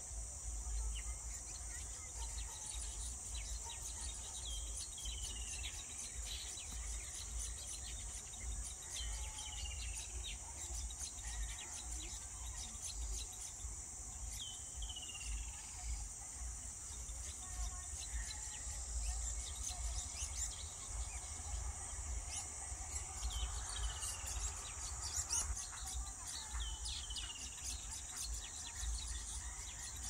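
A steady high-pitched insect drone runs throughout. Over it, a bird gives short descending whistled calls every few seconds, often two in quick succession.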